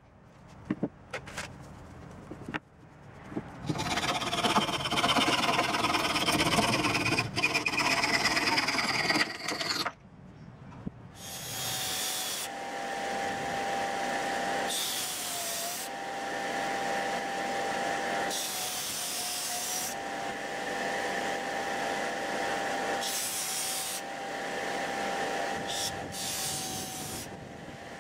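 Small disc sander running with a steady whine while a padauk wood knife handle is pressed against the sanding disc in about five separate passes. The whine dips slightly in pitch under load. Before the sander starts, several seconds of loud rough rasping noise.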